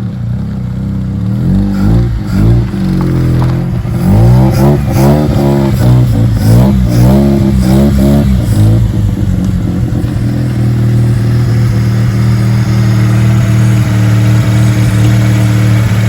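Mazda 12A rotary engine, fitted with a Weber 45 carburettor and Racing Beat exhaust, blipped up and down repeatedly, then settling to a steady idle about ten seconds in.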